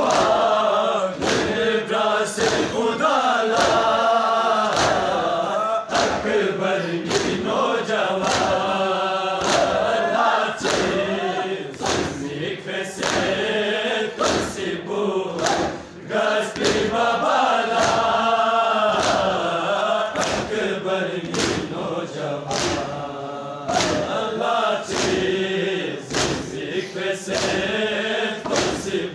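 Crowd of men chanting a Balti noha, a Shia mourning lament, together. Under the chant runs a steady beat of hands striking chests in matam.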